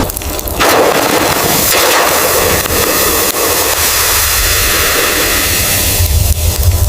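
Blizzard wind blowing steadily, a loud rushing hiss, with a low rumble building near the end.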